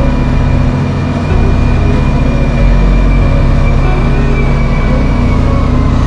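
John Deere wheel loader's diesel engine running under load as the bucket pushes snow into a pile. Its low rumble gets heavier a little past two seconds in.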